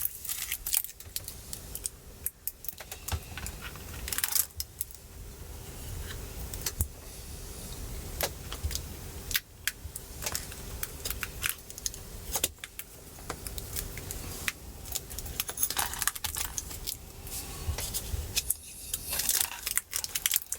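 Handling noise: irregular light clicks, taps and small rattles as a replacement battery is laid into and positioned in an opened MacBook Pro's aluminium case.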